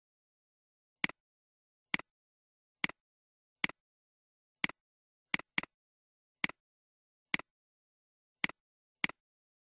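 Computer mouse clicks: about eleven short sharp clicks, each a quick press-and-release double tick, spaced irregularly from under half a second to about a second apart, with total silence between them.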